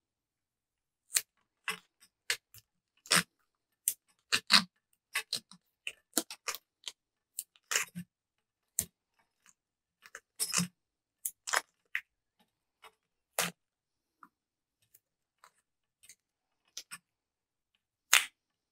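Masking tape being handled and wound onto a fly rod blank to build up a reel-seat arbor: a string of short, irregular clicks and crackles with brief quiet gaps between them.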